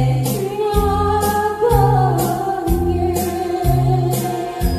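Woman singing a trot song into a handheld microphone over a backing track with a steady beat of about two beats a second; she holds long notes that slide between pitches.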